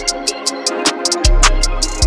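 Background music with drums and a steady beat. The bass drops out briefly and comes back with a kick drum just over a second in.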